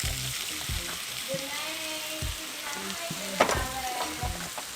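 Food sizzling in a hot pot with olive oil as shrimp are added and stirred, with several knocks of a utensil against the pot; the sharpest comes about three and a half seconds in.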